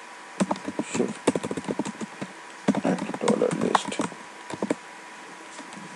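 Typing on a computer keyboard: two quick bursts of key clicks, one about half a second in and a longer one from under three seconds in to nearly five.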